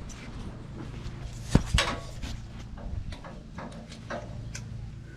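Scattered light metallic clinks and knocks from work on a steel sawmill bed. Two louder knocks come close together about a second and a half in.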